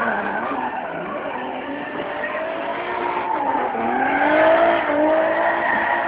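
Drift car engine revving up and down as the car slides sideways through the corners, over tyre screech. The engine pitch dips about halfway through, then climbs again.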